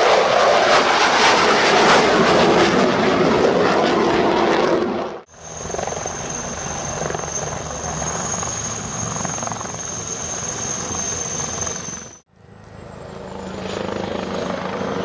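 Aircraft engine noise in three clips joined by sudden cuts. A loud rushing engine noise comes first, then engine noise with a steady high-pitched whine over it, and after the second cut a lower, steadier hum.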